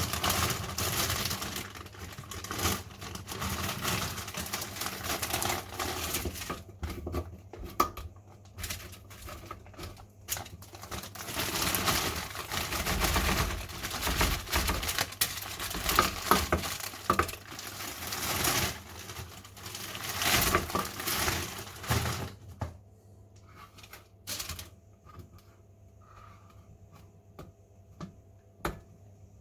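Plastic food packaging crinkling and rustling, mixed with small clicks and knocks of kitchen handling. It comes in irregular bursts, then drops to a few scattered clicks for the last several seconds.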